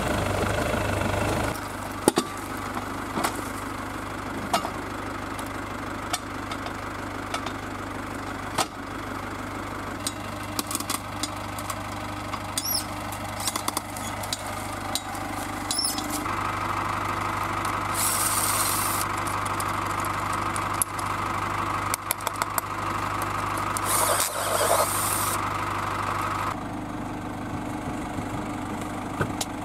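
GAZ Sobol 4x4 van's engine running louder for the first second and a half, then idling steadily, with scattered clicks and knocks and two brief hissing sounds about two-thirds of the way through.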